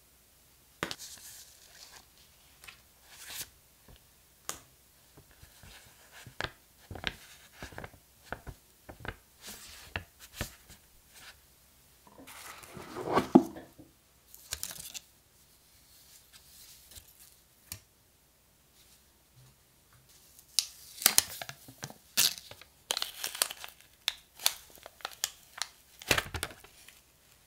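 Paper instruction leaflets and cardboard packaging handled in sporadic rustles and clicks, with one louder rustle about halfway. Near the end comes a dense run of crinkling and tearing as the protective wrap is stripped off the power adapter.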